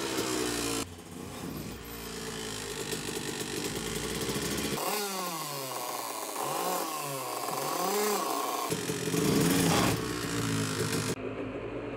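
Honda CR125's two-stroke engine revving, its pitch swooping up and down again and again. The sound changes abruptly several times where short shots are joined.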